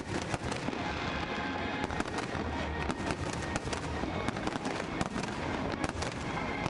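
Ground fireworks display crackling continuously, with many small sharp pops in quick succession over a steady hiss.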